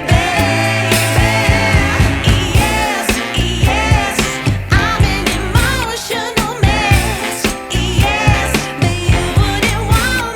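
Background music: a soul-funk song with a singing voice over a steady drum beat and bass.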